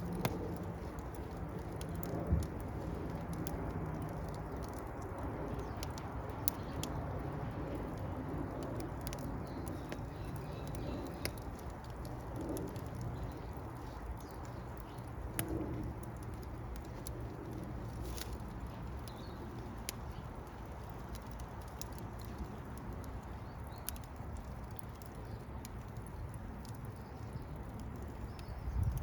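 Fire crackling: a steady low rush of burning with scattered sharp pops and snaps at irregular intervals, and a heavier pop near the end.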